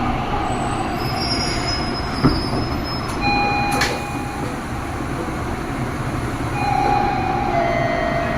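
Subway train riding, heard on board: a steady rumble with the wheels squealing in brief high tones several times, and a sharp knock about two seconds in and another near four seconds.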